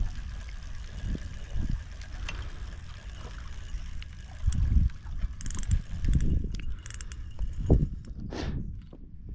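Water moving at the shore with wind rumbling on the microphone, broken by a few short knocks and brief rustling hisses.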